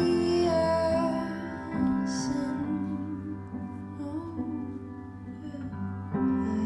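Music with long held melody notes, growing quieter through the middle and louder again near the end.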